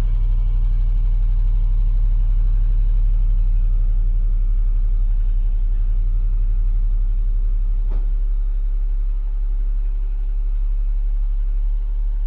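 Jeep Grand Cherokee SRT8's Hemi V8 idling through its exhaust just after a cold start, a steady deep rumble. About eight seconds in there is a sharp click and the low drone eases a little.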